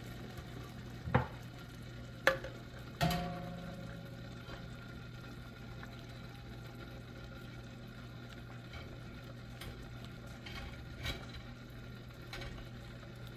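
Glass mason jars set down and shifted on the rack of a stainless steel steam canner: a few sharp clinks and knocks in the first three seconds, the last ringing briefly in the metal pot, then fainter clicks later. Under them is a steady hiss of the heated canner.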